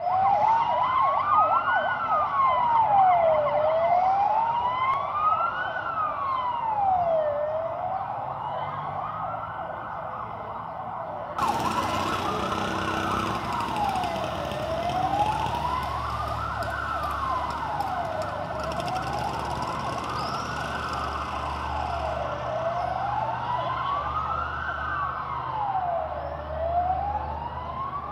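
A wailing siren rising and falling slowly, about one full up-and-down cycle every three and a half seconds. A low rumble and hiss join in underneath about eleven seconds in.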